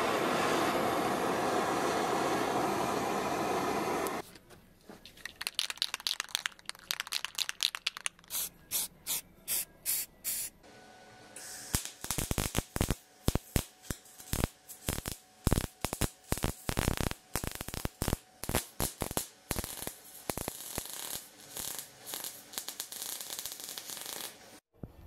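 Gas blowtorch flame hissing steadily for about four seconds, then an arc welder striking and breaking off in many short crackling bursts, some in quick runs, as steel flat bars are tack-welded.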